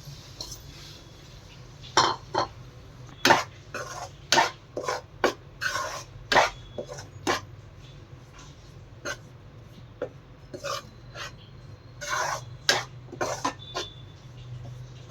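Metal utensil scraping and knocking against a kadhai in irregular strokes while flour is stirred and roasted in ghee.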